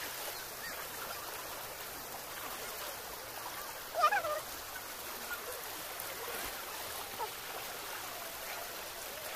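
Shallow river water rushing steadily over rocks. A short high-pitched call cuts through about four seconds in.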